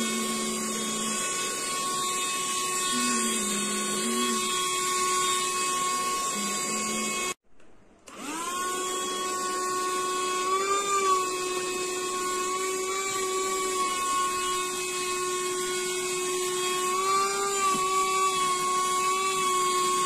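KADONIO cordless handheld vacuum cleaner's motor running with a steady high whine. It breaks off for about half a second about seven seconds in and comes back, rising in pitch as it spins up. Its pitch wavers briefly twice.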